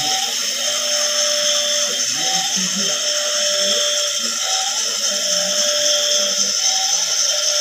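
Toy RC truck's small electric motor and gears whining steadily, with an electronic sound effect from the truck's sound module repeating about every two seconds: a short rising chirp followed by a longer steady tone.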